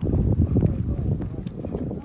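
Wind buffeting the microphone, a loud low rumble that sets in suddenly.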